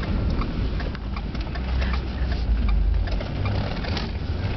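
Car engine and road noise heard from inside the cabin: a steady low rumble, heaviest through the first three seconds, with scattered light clicks.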